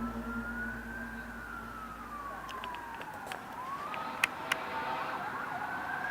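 A siren-like wailing tone that slowly rises, falls and rises again, breaking into quicker up-and-down warbles near the end, over a low hum that fades out halfway. Two sharp clicks a little after 4 seconds in.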